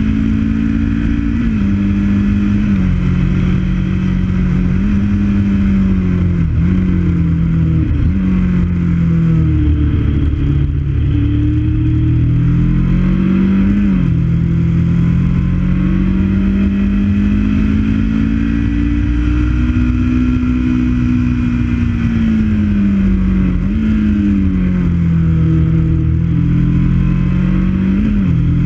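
Motorcycle engine running under way, its note rising and falling with the throttle and dipping sharply several times, over steady wind rush on the microphone.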